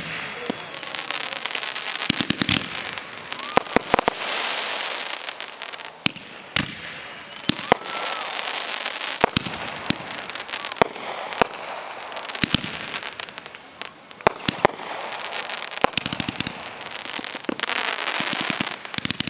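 Fireworks going off in a dense, continuous barrage: many sharp bangs over steady crackling and hissing, with a few short whistles that glide up and back down.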